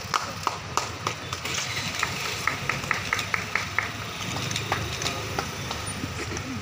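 Scattered hand claps from a small group of people, with a quicker run of claps about halfway through, over a low background murmur.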